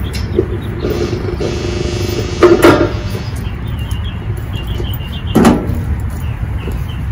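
Steady low outdoor rumble on the microphone, with a humming tone from about one to two and a half seconds in and two brief knocks, the louder about two and a half seconds in and another about five and a half seconds in.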